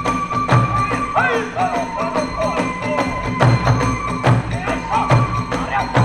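Kagura hayashi music: a large drum beating a steady pulse under quick clashes of small hand cymbals. A bamboo transverse flute holds a high note, then plays a run of bending, sliding notes.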